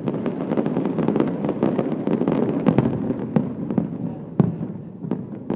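Fireworks display: a dense run of crackling pops and bangs over a continuous rumble, with one sharp bang standing out about four seconds in and the barrage thinning slightly near the end.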